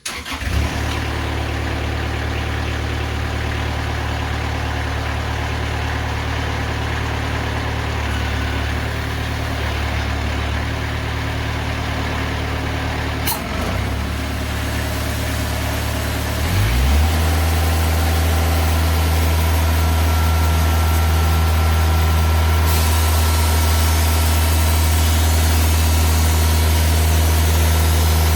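TimberKing 2000 band sawmill's engine running steadily. There is a sharp click about halfway through. A few seconds later the engine shifts pitch and runs louder, and a higher hiss joins it near the end.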